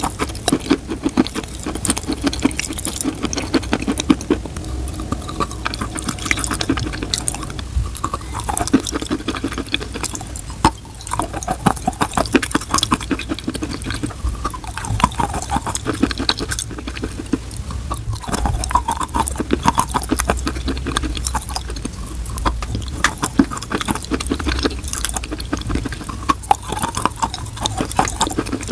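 Close-miked biting and chewing of chalk: a dense, continuous run of crisp crunching crackles mixed with wet mouth sounds as the chalk turns to paste.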